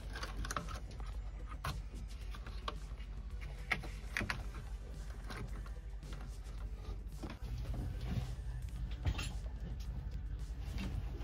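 Scattered small clicks and taps of hands handling wires, connectors and parts in a boat air conditioner's control box, over a steady low hum that grows a little stronger about seven seconds in.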